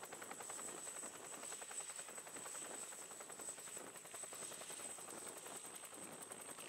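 Helicopter running on the ground with its rotor turning, heard faintly: a steady high whine over fast, even rotor beats.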